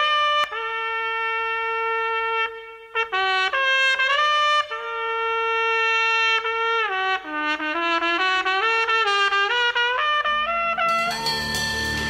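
Solo trumpet playing a slow punk-rock intro melody of long held notes, sliding between pitches, with a short break early on. Near the end a low bass and a cymbal wash come in as the rest of the band enters.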